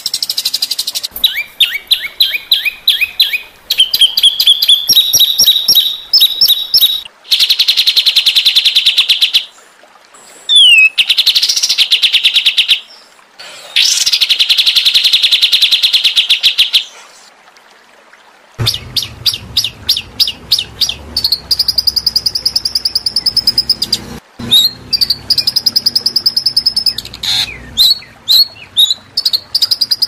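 Songbird calls in a spliced tutoring track: rapid-fire repeated chips and harsh trills, two long buzzy rattling trills, and a quick falling whistle, separated by short gaps where the recordings are cut. In the last third a low hum runs under the calls.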